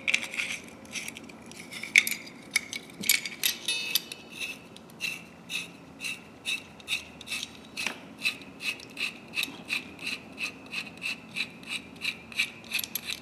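Greased steel adjusting screw of a pair of locking pliers being threaded into the handle: a steady run of light metallic ticks, about three a second, each with a slight ring.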